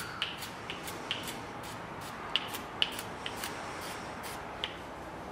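Short squirts from an aerosol can of Inox lubricant sprayed onto a wood lathe's bed: about ten brief hisses at irregular intervals.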